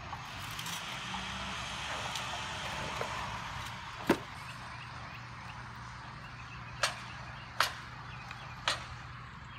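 Grey plastic toolbox lid clapping shut with one sharp knock, followed a few seconds later by three lighter sharp clicks.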